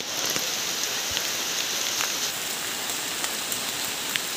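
Steady heavy rain falling, an even dense hiss with a few single drops ticking close by.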